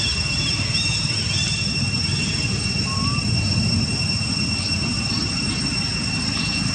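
Insects, likely cicadas, droning: a steady high-pitched whine held on two pitches over a low rumbling background, with a few faint chirps.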